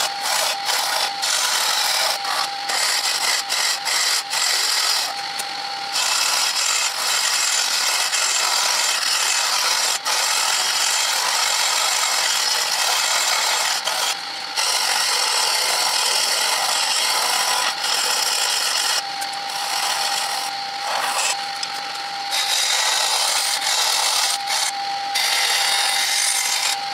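A flat turning chisel cutting a spinning wooden blank on a wood lathe: a steady, loud scraping hiss. It breaks off briefly several times as the tool leaves the wood, and in those gaps a steady whine of the running lathe shows through.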